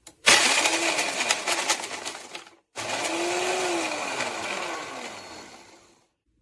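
Tefal Blendforce II jug blender run in two short pulses. Each time the motor whirs up in pitch and then winds back down, with the contents churning. The second pulse is longer, lasting about three seconds and ending about six seconds in.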